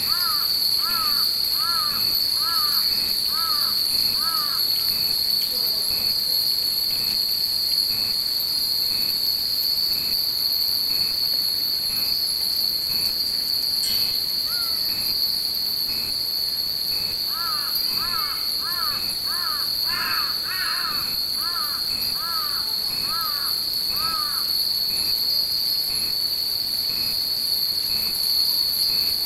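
Steady, unbroken high drone of cicadas, with crows cawing in a quick run of calls near the start and again a little past the middle. The furin wind chimes hung in the tree tinkle faintly underneath.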